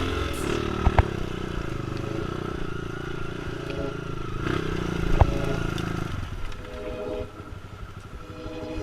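Trail motorcycle engine running and revving under load, with a few sharp knocks about one second in and again about five seconds in. The engine note drops away about six seconds in, leaving a fainter engine sound.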